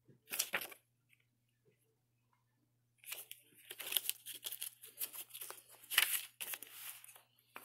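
A paper code card and a plastic DVD case being handled: a short rustle, a pause, then from about three seconds in a run of crinkling and small clicks.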